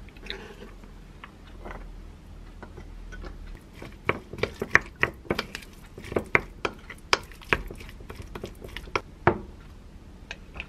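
A wooden spoon stirs and mashes soft avocado with chopped cherry tomatoes in a glass bowl. Starting about four seconds in, a quick run of sharp clicks and knocks comes from the spoon striking the glass, stopping shortly before the end.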